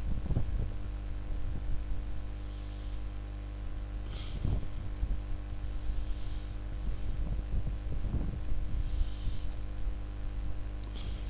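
Steady electrical hum with a thin high-pitched whine above it, and a few faint low thumps.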